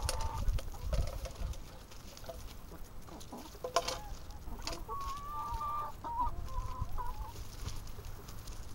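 A flock of brown laying hens clucking and giving short, high, wavering calls as they jostle and feed on greens, with a few sharp knocks among them.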